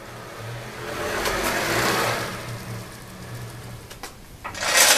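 Linear ball-bearing block rolling along its supported round steel rail: a rolling hiss and rumble that swells and fades over about three seconds. Near the end comes a loud metallic clatter.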